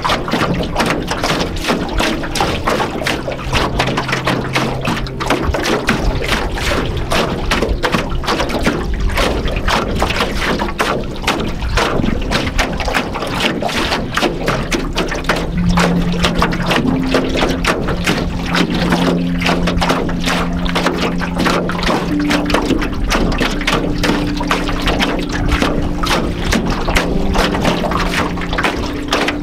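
Small choppy waves lapping and slapping irregularly against the hull of an aluminium canoe, with a soft ambient synth pad of long held low notes underneath that shift pitch every few seconds.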